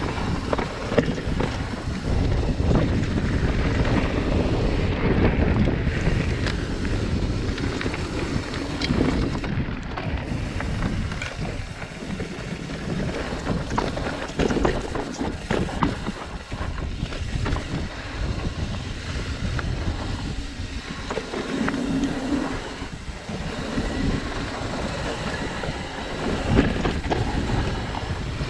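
Mountain bike riding dirt singletrack: wind buffeting the chest-mounted action camera's microphone and tyres rolling over the dirt, with frequent small clicks and rattles from the bike over bumps.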